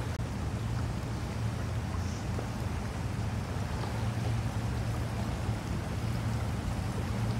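Steady rush of fast-flowing floodwater, with a constant low hum underneath.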